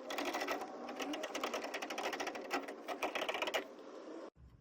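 Rapid, continuous mechanical clattering from a tool working on the truck's traction-bar bolts, cutting off abruptly near the end.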